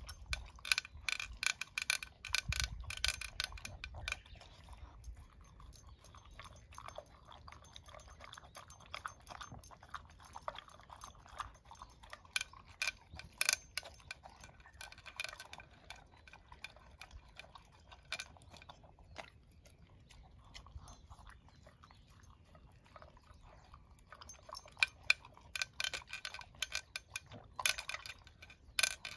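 A dog eating dry kibble from a plastic slow-feeder bowl: crunching and kibble clicking and clattering against the bowl. The clicking is busy for the first few seconds and again near the end, with sparser chewing between.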